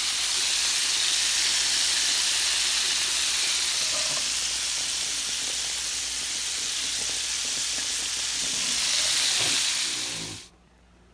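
Chicken pieces frying in hot grease in a cast iron skillet: a steady, loud sizzle that cuts off abruptly near the end.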